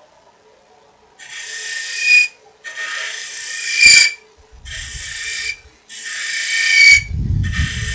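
A turning tool cutting end grain inside a spinning aspen goblet on a wood lathe. After about a second of quiet with a faint motor hum, it takes five separate scraping cuts of about a second each, each growing louder toward its end with a thin high squeal in it, and a low rumble under some of the later cuts.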